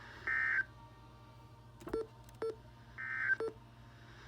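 Two short bursts of Emergency Alert System SAME data tones from a weather radio broadcast, a buzzy warble about two and a half seconds apart, with a few faint clicks between them.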